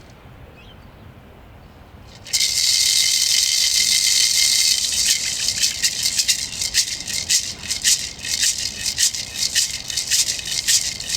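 A hand rattle starts shaking about two seconds in, a continuous high shimmer that turns into an uneven pulsing beat, the rattle accompaniment to a traditional song.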